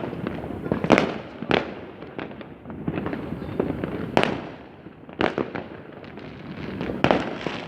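Fireworks going off in many places at once: irregular sharp bangs, the loudest about a second in, at about four seconds and again near the end, over a steady rumble of further bangs.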